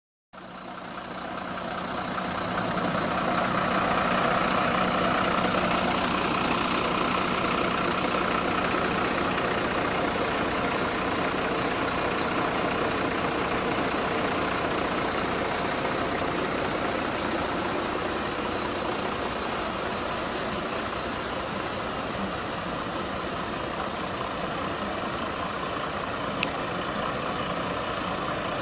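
Engines of parked emergency vehicles, fire trucks and an ambulance, idling steadily at the roadside. The sound fades in over the first couple of seconds, and there is a brief click near the end.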